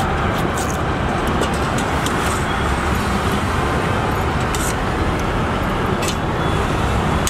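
Steady road traffic noise, with a few light clicks of a steel ladle knocking against a steel curry pot.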